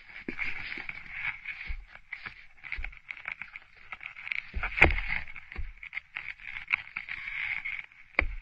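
Crackling, clicking underwater sound heard by a microphone beneath lake ice, with a few dull knocks and one louder knock about five seconds in.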